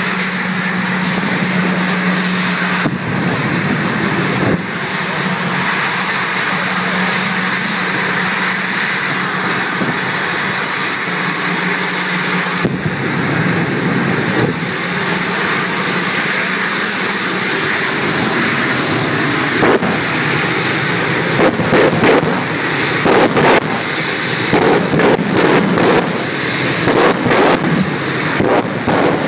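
General Electric J85 turbojet of a jet dragster running loudly, with a steady high-pitched turbine whine that rises about two-thirds of the way through. In the last third it gives a rapid series of sharp bangs as the afterburner is lit in bursts.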